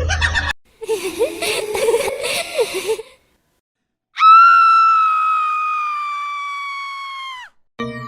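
Horror sound effects: a rasping, wavering ghostly voice for about two seconds, then after a short silence a long, loud, high scream that slides slowly down in pitch and cuts off.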